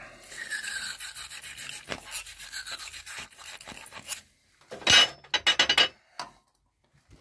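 Scrubbing and rubbing on metal for about four seconds, with a few faint squeaks, while freshly tapped threads and drilled holes are cleaned up; then a quick cluster of loud metallic clinks and knocks about five seconds in, and a last small click near the end.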